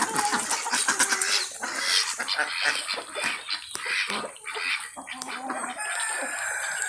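Native ducks quacking as they bathe in rainwater, with a dense run of short calls and splashes.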